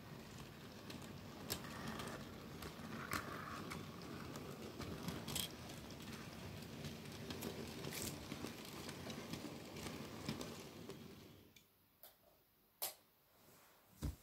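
Model railway freight wagons rolling along the track: a steady rumble with scattered sharp clicks. The rumble stops about eleven seconds in, leaving a few separate clicks.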